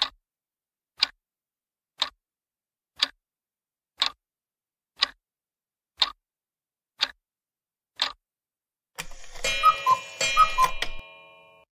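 Countdown-timer ticking sound effect, one sharp tick a second, nine ticks. Then a bright correct-answer jingle with two pairs of short falling notes that rings out and fades.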